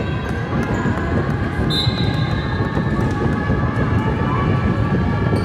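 Loud crowd din of many voices in a gymnasium, with a steady high held tone that comes in about two seconds in.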